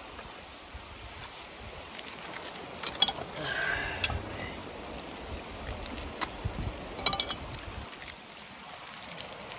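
Steady outdoor background noise with several sharp clicks and taps, the loudest about three seconds in and a cluster about seven seconds in.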